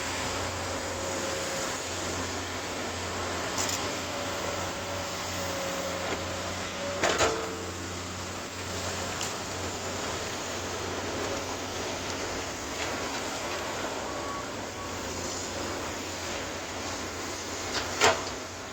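Komatsu PC200 hydraulic excavator running steadily, its diesel engine humming under a broad machine noise. Two sharp knocks cut through it, one about seven seconds in and a louder one near the end.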